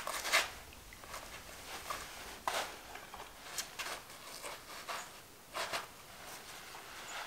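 Footsteps and shoe scuffs on sandstone and gritty sand: a few irregular scrapes, the loudest right at the start, then scattered ones every second or two.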